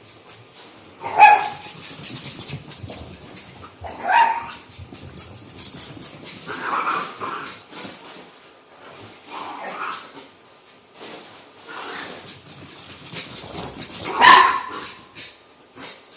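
Dogs barking as they play-chase each other. Sharp barks come about a second in, at about four seconds and near the end, the last the loudest, with quieter calls between.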